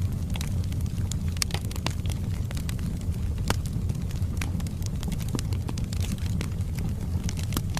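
Wood fire burning in a fireplace: a steady low rumble of the flames with irregular sharp crackles and pops from the logs.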